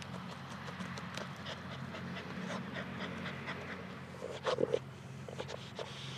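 Jack Russell terrier panting, over a steady low hum, with a short louder sound about four and a half seconds in.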